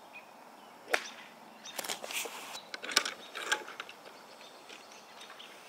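A golf iron striking the ball with a sharp click about a second in, followed by further sharp clicks and clinks of golf clubs knocking against each other and a bag around the three-second mark.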